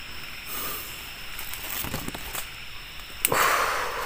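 Night forest sounds: a steady high insect drone with faint rustling and small clicks. About three seconds in comes a sharp click, then a louder, hissing rustle lasting under a second.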